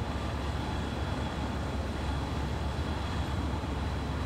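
Steady outdoor ambience: an even low rumble with a faint hiss over it, the distant hum of a city with no single event standing out.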